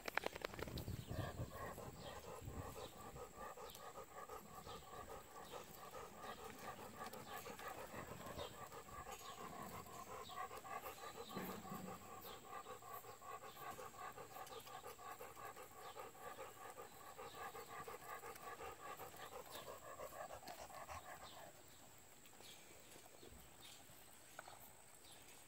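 A dog panting steadily and fast close to the microphone, stopping about three-quarters of the way through.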